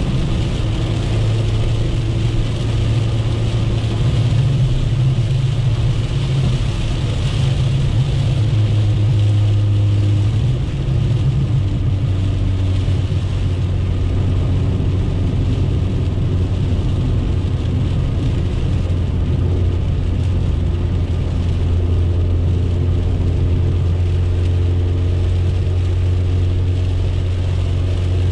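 Chevrolet Corsa Wind's engine droning steadily at highway cruise, heard from inside the cabin, over tyre noise on the wet road and heavy rain on the car. The engine note drops slightly about ten seconds in.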